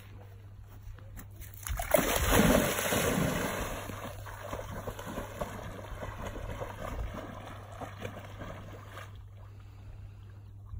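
Hungarian vizsla jumping into the water with a loud splash about two seconds in, then swimming out, the water sloshing and splashing around it until it quietens near the end.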